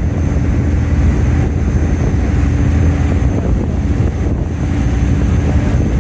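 Tour boat's engine running at a steady drone, with wind rushing on the microphone.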